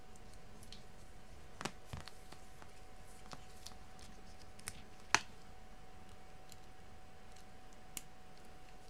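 A few light clicks and taps as the plastic parts of a permanent-makeup tattoo machine kit are handled in their foam-lined case, the sharpest about five seconds in, over a faint steady hum.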